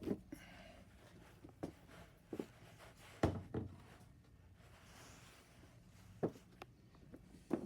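A few scattered light knocks and bumps, about six over several seconds, the loudest about three seconds in, as someone moves about and handles things in a small room.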